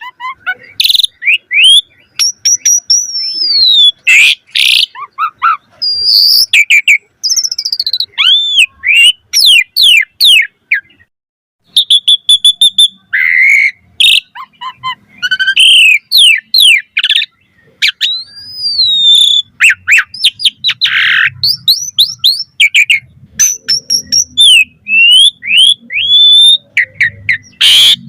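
Asian pied starling (jalak suren) singing a long, varied song: quick runs of falling chirps, rising and falling whistles and harsh rasping notes, in phrases separated by short pauses.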